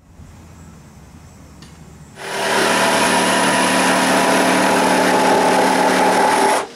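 Corded electric power saw cutting through a pine board: it comes in loud about two seconds in, runs at a steady pitch, and cuts off abruptly near the end.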